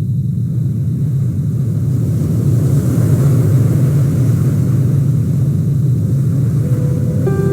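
Steady low rumble of a car driving, engine and road noise with no change in pace. Near the end, a few sustained music notes come in over it.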